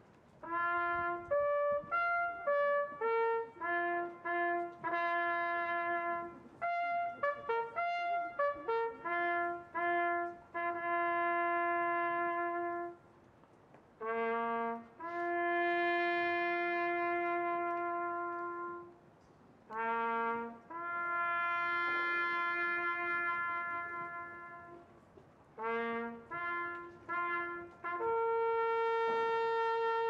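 Solo trumpet playing a military bugle call of remembrance. Quick groups of short notes alternate with long held notes, with brief pauses between phrases.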